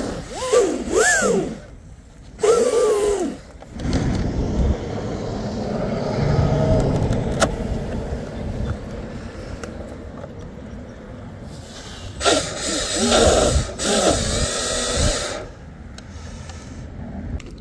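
Short whines of a brushless RC boat motor, rising and falling in pitch, twice near the start and again in a cluster after about twelve seconds, as the throttle is blipped. In between come handling noises: fingers and a screwdriver working the batteries and wires in the open hatch. The owner is testing a receiver wire he believes is corroded.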